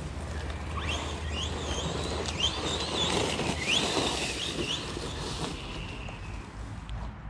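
Losi Lasernut RC car's brushless electric motor whining, rising in pitch again and again with short bursts of throttle. Near the middle it holds a higher pitch for a couple of seconds, then it sinks and fades.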